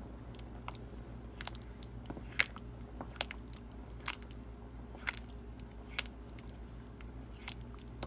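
Wooden spoon mashing and chopping vegetables in thick split pea soup in a stainless steel pot: soft squelching with irregular sharp knocks of the spoon against the pot, about ten in all, over a low steady hum.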